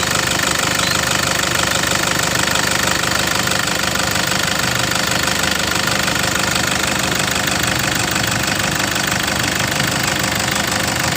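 Diesel car engine idling steadily at an even, unchanging speed, with no revving.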